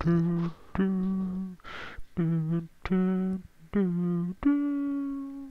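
A man's voice humming a melody a cappella in separate held notes, a vocal stand-in for the film's score. There is a quick breath about two seconds in, and the phrase ends on a longer, slightly higher note.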